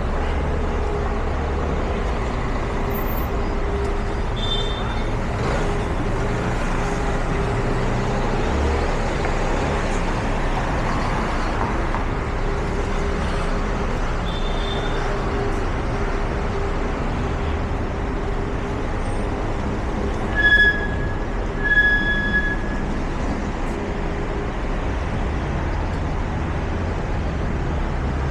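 Steady city street traffic noise of passing motor vehicles, with an engine's low steady hum. Two short high-pitched beeps come about two-thirds of the way through and are the loudest sounds.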